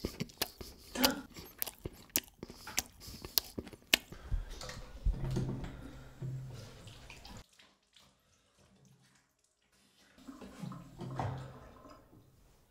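Sink tap water running and splashing over hands, in two spells with a quiet gap between them, after a string of sharp clicks and knocks in the first few seconds.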